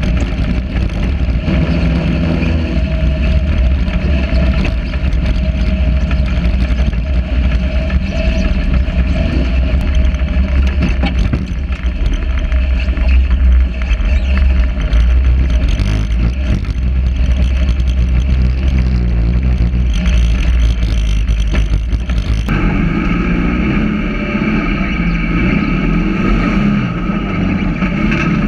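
Sand rail dune buggy engine running at speed over sand, the revs rising and falling, with a heavy low wind rumble on the microphone. About three-quarters of the way through the sound cuts abruptly to a different buggy's engine.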